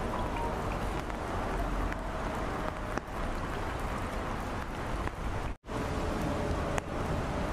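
Rain falling on a flooded street, a steady hiss of drops on standing water over a low rumble. The sound drops out for an instant about five and a half seconds in.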